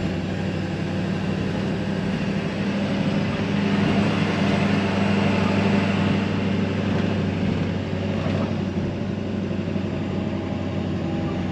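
Kodiak truck's engine and road noise: a steady drone that swells a little about four seconds in and eases back a few seconds later.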